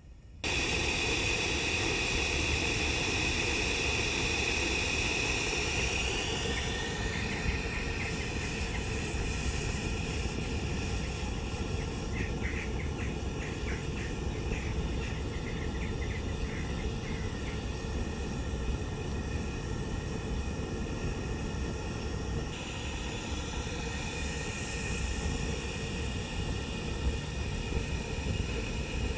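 Gas burner firing a raku kiln: a steady rushing noise that cuts in abruptly and holds level, with faint light ticking in the middle.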